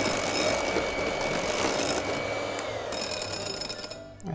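Electric hand mixer running steadily with a high whine, its beaters whipping liquid cream in a glass bowl. It slows and is switched off near the end.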